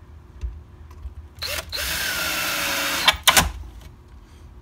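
Cordless drill driving a 1-5/8 inch drywall screw through ABS pipe into the underside of a wooden bench. A short blip about a second and a half in is followed by a steady run of about a second and a half, its pitch dropping slightly, and then two short sharp bursts as the screw is finished off.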